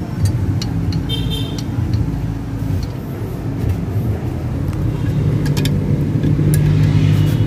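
Steady low drone of a motor vehicle engine running, louder toward the end, with a few short clicks over it.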